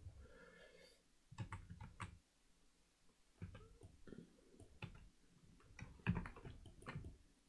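Computer keyboard keys and mouse buttons clicking faintly in short irregular clusters, as keyboard shortcuts are pressed and the mouse is clicked.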